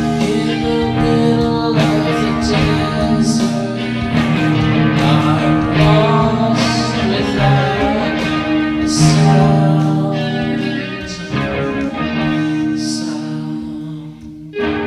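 Guitar-led music with long held notes, growing quieter near the end.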